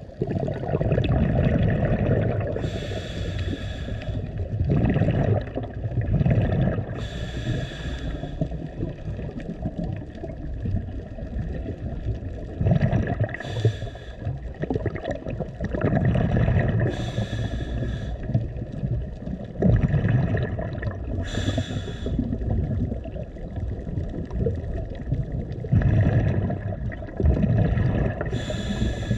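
Scuba diver breathing through a regulator underwater: a hissing inhale every four to six seconds, with the low rumble and gurgle of exhaled bubbles between breaths.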